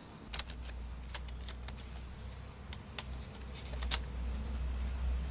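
Irregular light metallic clicks and taps as a socket wrench and bolts are handled on a Nissan Leaf battery module, over a steady low rumble.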